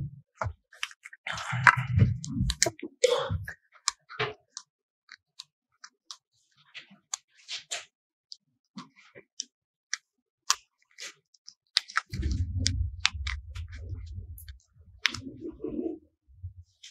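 Scattered small clicks and taps, with low rumbling thuds about a second in and again from about twelve to fifteen seconds in.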